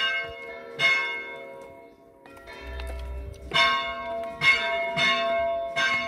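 Bells ringing: a series of clanging strikes, each leaving a long ringing hum, with a pause of a couple of seconds between the first strikes and the later ones.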